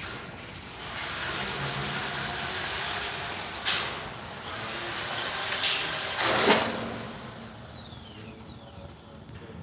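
A passing vehicle's rushing noise swells and then fades away, with a falling whine as it goes. Three sharp knocks come in the middle, the last the loudest.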